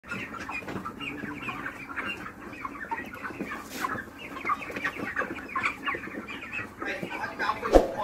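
A large flock of white broiler chickens clucking and calling over one another in a crowded shed, with a single sharp knock near the end.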